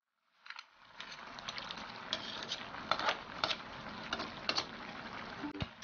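Coconut-milk sauce boiling in a wok under a pile of shrimp, mussels and squid: a steady bubbling hiss with scattered sharp pops and crackles. It cuts in suddenly about half a second in.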